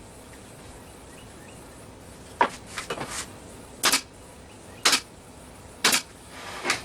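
Sharp knocks of wood on wood, four strong ones about a second apart with a couple of lighter taps among them, starting a little over two seconds in: a small wooden shelf piece being tapped into a tight fit.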